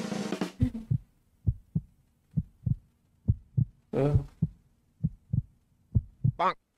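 Heartbeat sound effect: pairs of short low thumps in a slow lub-dub rhythm, building suspense. There is one brief louder burst about four seconds in, as a match is struck, and a short rising sound near the end.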